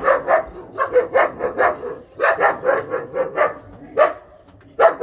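German Shepherd puppies barking in quick runs of several barks each, then single barks about four seconds in and near the end.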